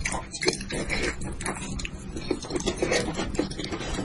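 Close-miked chewing and lip-smacking of spicy braised sheep head meat: an irregular stream of short, wet mouth clicks and crackles.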